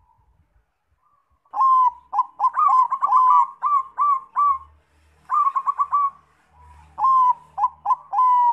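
Zebra dove (Bangkok-type perkutut) singing: quick runs of short, clipped cooing notes, in three bursts beginning about a second and a half in.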